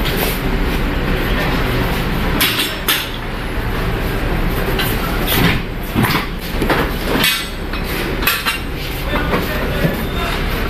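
Metal clanks and rattles from the locking bars and handles of a refrigerated container's rear doors as they are unlatched and the door is swung open, a string of sharp knocks over a steady mechanical hum.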